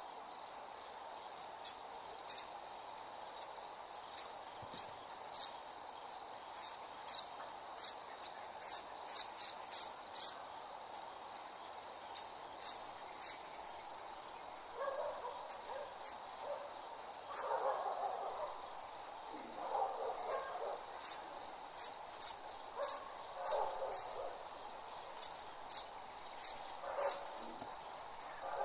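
Crickets trilling steadily in a continuous high-pitched chorus, with scattered sharp ticks and a few short, softer sounds in the second half.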